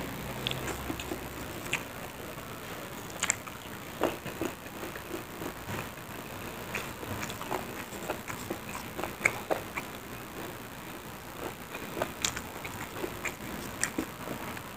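Close-miked eating sounds of a person eating rice and side dishes by hand: chewing and mouth smacks, heard as many small irregular clicks over a steady hiss.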